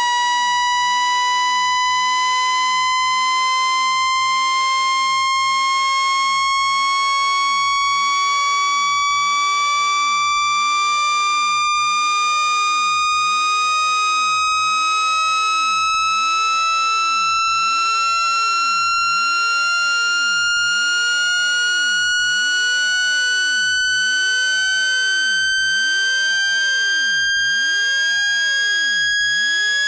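Synthetic phone-speaker water-eject tone: a loud, steady electronic tone with buzzy overtones, slowly and evenly rising in pitch.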